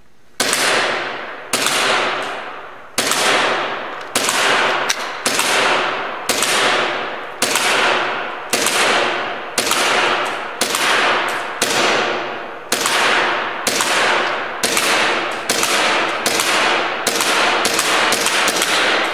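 KJW Glock 23 green-gas airsoft pistol firing about two dozen shots, each a sharp crack that echoes for up to a second. The shots come about a second apart at first and faster, in quick strings, near the end.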